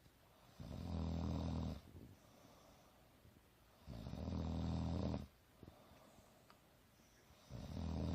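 A woman snoring in her sleep: three long, low snores about three and a half seconds apart, the last beginning near the end.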